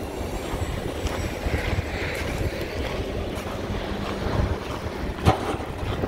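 John Deere 318G skid steer's diesel engine running with a steady low rumble, wind buffeting the microphone; a single sharp knock about five seconds in.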